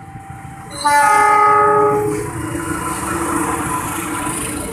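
Diesel locomotive horn hauling a passenger train, sounding a held chord that grows much louder about a second in and stops about two seconds in. The rumble and clatter of the train's wheels on the rails follows as the train passes over the crossing.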